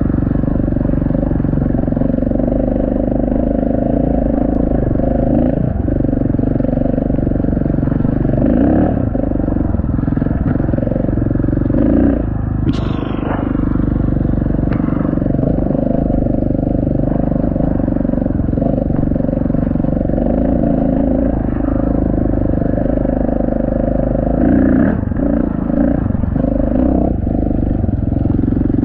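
Enduro dirt bike's engine running at a steady, moderate pace as it is ridden along a gravel track, with only small changes in engine speed. A brief sharp noise comes about halfway through.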